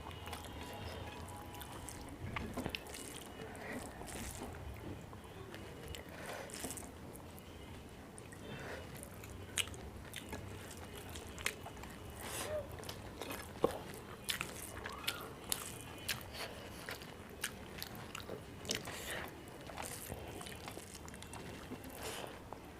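Close-up eating sounds: a person chewing rice and curry, with wet mouth smacks and irregular short crunchy bites.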